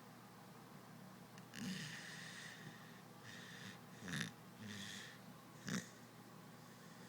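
Sleeping dog snoring: a few slow, noisy breaths, broken by two short, sharp snorts about four and six seconds in.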